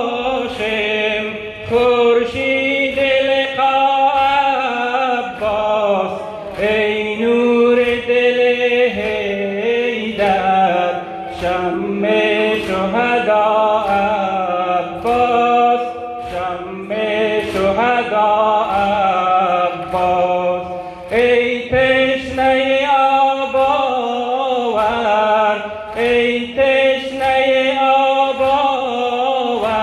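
A reciter chanting a Muharram noha (Shia mourning lament) in a drawn-out, ornamented melody. Sharp slaps recur through it at a regular beat, the sound of mourners beating their chests (sineh-zani).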